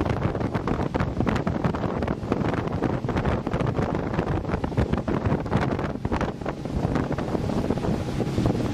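Wind buffeting the camera microphone aboard a rigid inflatable boat under way, a loud gusty rumble.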